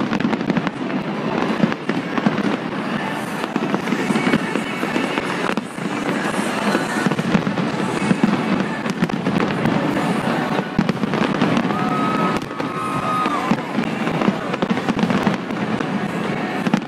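Aerial fireworks display: a continuous, dense barrage of bangs and crackling shell bursts with no pause.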